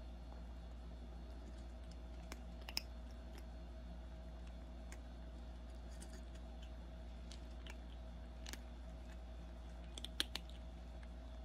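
A young kitten, about 55 days old, crunching dry kibble from a bowl: scattered faint crunches and clicks, with the loudest few close together about ten seconds in, over a steady low hum.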